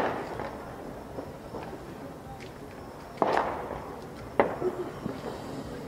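Aerial fireworks bursting in the distance: a sharp bang at the start, another about three seconds in that trails off briefly, and a third about a second later, with smaller pops and crackles between.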